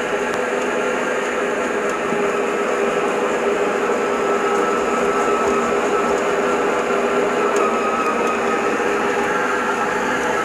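Silvercrest stand mixer's motor and gearbox running steadily under load as it kneads a stiff bread dough, a constant whine with a few fixed tones.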